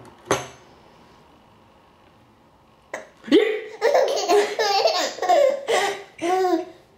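A baby with hiccups: one sharp hiccup just after the start, then about three seconds in a run of baby laughter lasting around four seconds.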